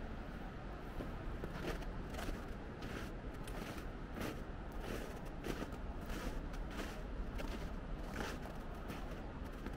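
Footsteps in snow, about two steps a second, starting about a second and a half in, over a steady low background rumble.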